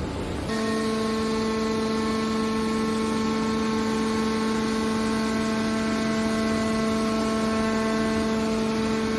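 Hydraulic scrap metal baler shear running: a steady machine hum with a fixed pitched tone over a noisy background, cutting in abruptly about half a second in.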